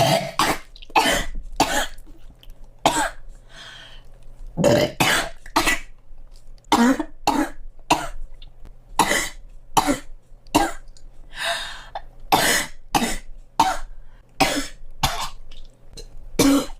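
A girl coughing over and over, in short fits of two to four coughs about half a second apart, with brief pauses between fits.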